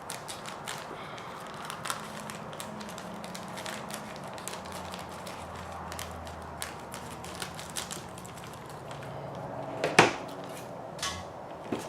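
Hands handling and positioning an RC truck kit's chassis plate and small parts: scattered light clicks and taps, with one sharper knock about ten seconds in.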